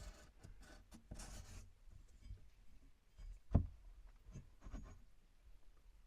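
Pencil scratching on wood in a few quick strokes, marking a line, then a single sharp knock with a couple of fainter taps after it.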